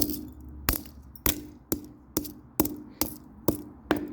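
Repeated sharp blows on a plastic toy cash register being smashed apart, about nine strikes at roughly two a second, each with a short ringing tail.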